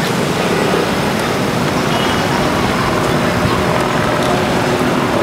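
Steady street traffic noise: the engines and tyres of road vehicles running.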